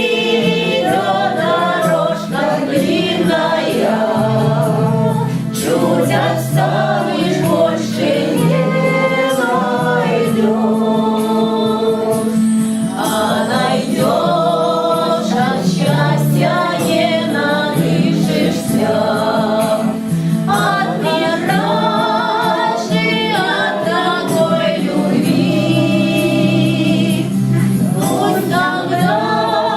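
A group of people singing a Russian song together, choir-like, over held low accompaniment notes that change every second or so.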